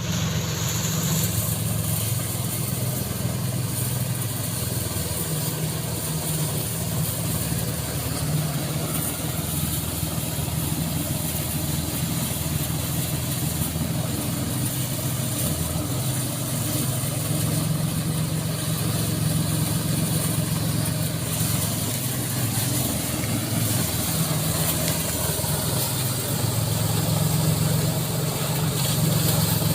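Engine-driven rice threshing machine running steadily with a constant drone.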